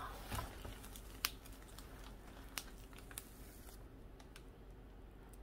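Faint rustling and crinkling of fluffy fiberfill packing and plastic wrap being pulled off a potted plant, with a few sharp clicks; the rustling stops about two thirds of the way in.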